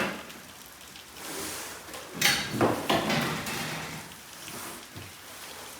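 Knocks and clatter of work on a garage door installation: a sharp knock at the start, then a cluster of louder knocks and rattling about two to three seconds in.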